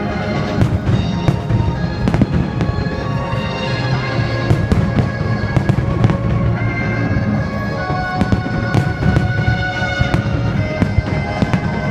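Fireworks bursting and crackling in many quick, irregular reports, over music with long held notes.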